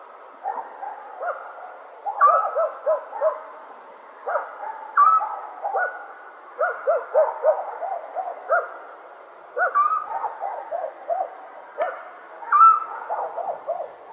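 Night-time countryside ambience: short animal calls repeating in quick runs of three to five notes, with higher notes that bend in pitch in between, over a faint steady hiss.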